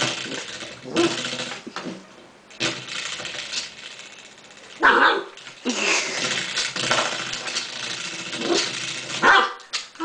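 Spring door stopper twanging and rattling as a puppy paws and bites at it, with the puppy barking twice, about halfway through and near the end.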